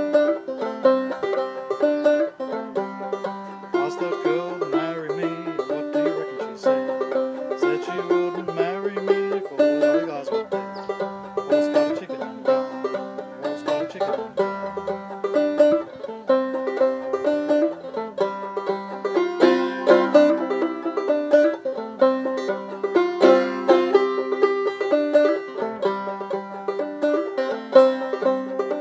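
Solo banjo played clawhammer style: a quick, steady run of plucked notes over a ringing drone string, in the style of an old-time fiddle tune.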